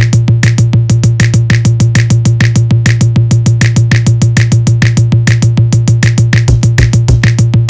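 Electronic intro music with a fast, steady drum-machine beat over a held bass note.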